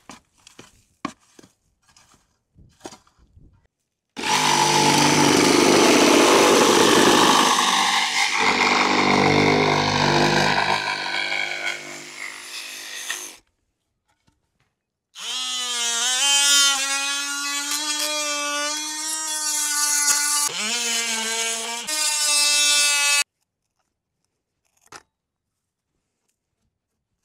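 Cordless reciprocating saw running in two long cuts of about nine and eight seconds with a short pause between, cutting down the PVC conduit stub that sticks up out of the concrete; the second cut carries a steady motor whine. A few light handling clicks come before the first cut.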